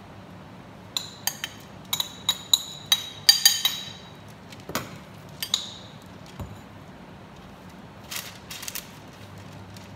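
A spoon tapping against the rim of a bowl: about a dozen quick ringing clinks over three seconds as the filling is knocked off onto the dough, then two more clinks and a short rustle near the end.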